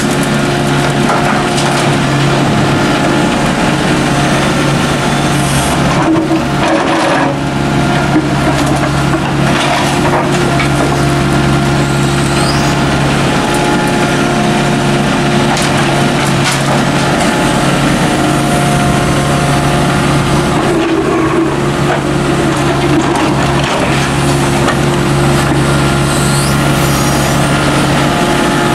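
Volvo mini excavator's diesel engine running steadily under working load, with a few bursts of clattering and scraping as soil and rubble are scooped up and dumped from the bucket into a steel dump-truck bed.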